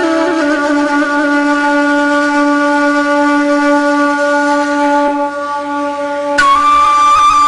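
Background folk music on a flute-like wind instrument: one long held note over a steady low tone, then the melody moves to a new note about six seconds in and breaks into quick trills.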